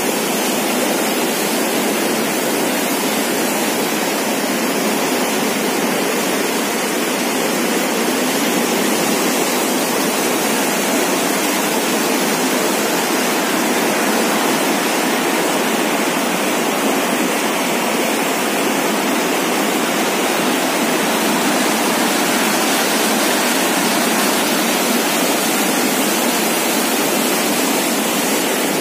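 Floodwater gushing through a dam's sluice gate and churning white against its masonry walls: a loud, steady rush of turbulent water with no let-up.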